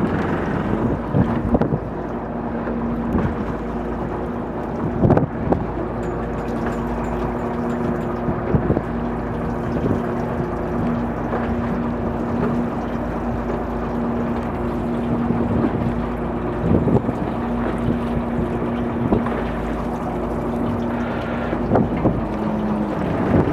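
Fishing boat's engine running steadily at idle, with wind on the microphone and a few scattered knocks.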